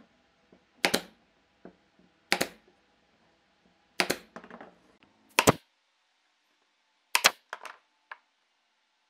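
Pneumatic brad nailer firing, driving brads through wooden moulding strips into a panel: about six sharp shots, spaced one to two seconds apart.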